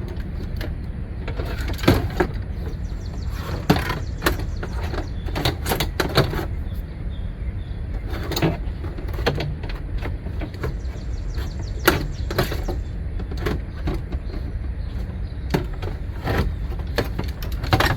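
Irregular clunks, knocks and rattles as the old window regulator is worked out of an SUV's rear door shell, over a steady low hum.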